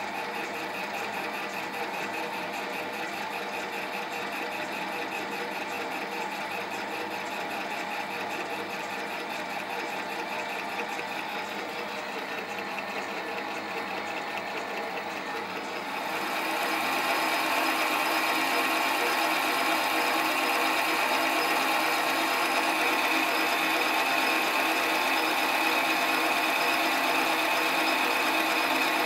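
Sieg SC4 bench lathe running with its fine power feed engaged while a boring bar cuts inside the bore of the eccentric strap: a steady machine whine with several held tones. It grows louder and brighter about halfway through.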